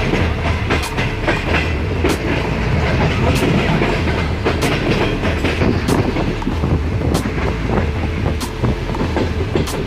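Pakistan Railways passenger train heard from aboard while running at speed: a steady rumble of wheels on the track, with a sharp clickety-clack from the wheels crossing rail joints about every second and a quarter.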